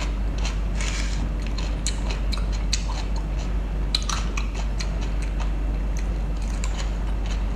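Close-miked eating: irregular crisp clicks and smacks of food being bitten and chewed, over a steady low hum.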